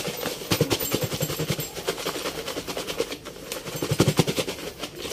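Chicken skins and dry breading mix shaken hard inside a lidded plastic ice cream tub: a rapid rattle of knocks as the pieces are thrown against the tub's walls. The rattle is strongest near the start and again about four seconds in.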